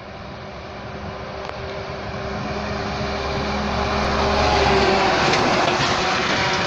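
A Volvo FH semi-truck pulling two trailers approaches at highway speed and passes close by. Its engine hum and tyre rush grow louder to a peak about four to five seconds in, with a few knocks as the trailers go past.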